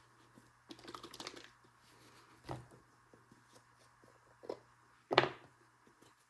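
Scattered small clicks and light knocks from hands handling engine parts and tools at the workbench, a quick cluster about a second in and single clicks later, the loudest about five seconds in.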